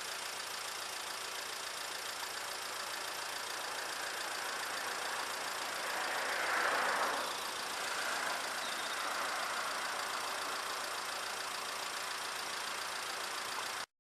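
Roadside traffic: a steady engine hum, with a car driving past that swells and fades about seven seconds in.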